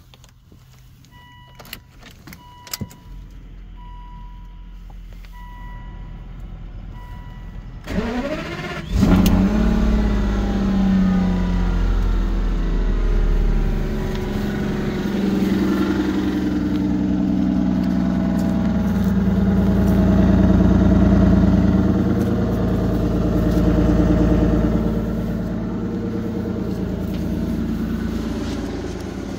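Aston Martin dashboard chime pinging about once a second, then about eight seconds in the starter cranks and the engine fires with a sharp rev flare. It settles into a steady fast idle.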